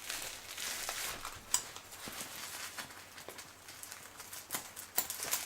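Packaging crinkling and rustling as it is handled and unwrapped, with two sharp clicks, one about a second and a half in and one near the end.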